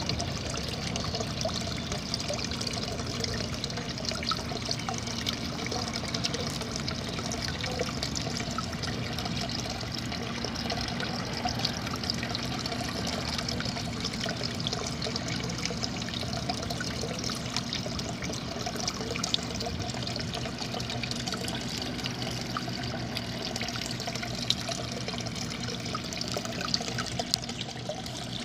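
A small garden-pond waterfall trickling steadily from rocks into the pond, water splashing onto the surface with many small droplet ticks.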